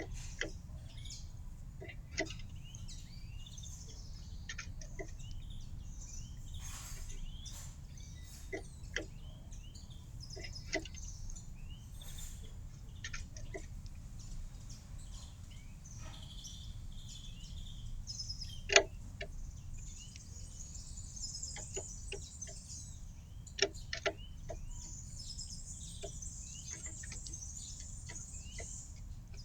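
Small garden birds chirping and twittering at a feeder, with high rapid twittering in the last third, a few sharp taps (the loudest about two-thirds of the way through), and a steady low rumble beneath.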